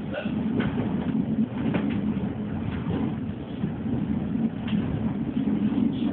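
Electric train running along the track, heard from inside the driver's cab: a steady low rumble, with a few faint short clicks over it.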